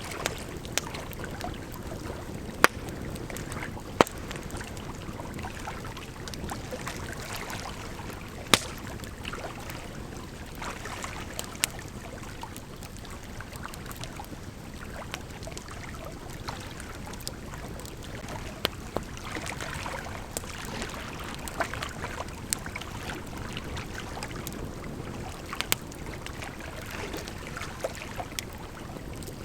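Wood campfire crackling with scattered sharp pops, a few of them loud, over the steady rush of a gently flowing river.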